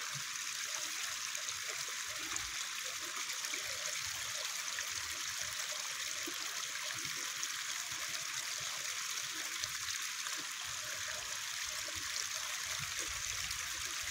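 Running water: a steady, even rushing hiss.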